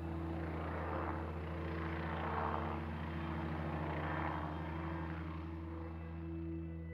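Helicopter flying overhead, its noise swelling and then fading, over a steady low drone.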